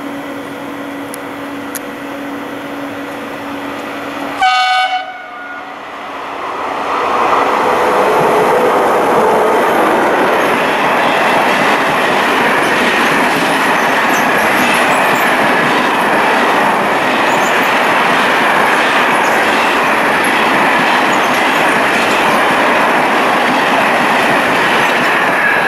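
E652 electric locomotive passing close with a steady hum, then, about four seconds in, a short blast of its horn. After that, a long freight train of sliding-wall wagons rolls by at speed: a loud, steady rumble of wheels on rails that swells within a couple of seconds and holds.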